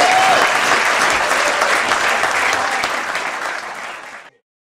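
Audience applauding, dying away gradually and cutting off suddenly a little after four seconds in.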